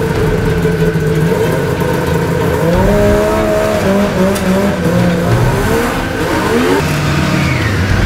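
Snowmobile engine running, revved so that its pitch climbs about two and a half seconds in, wavers up and down, and falls back near the end.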